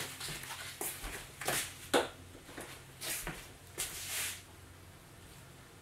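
Kitchen handling noises: several short scraping and rustling sounds, with a sharp click about two seconds in, as things are picked up and set down at the counter.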